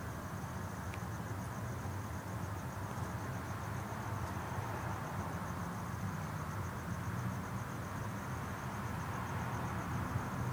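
An insect, most likely a cricket, chirping in a fast, even pulse at one high pitch, over a steady low background hum.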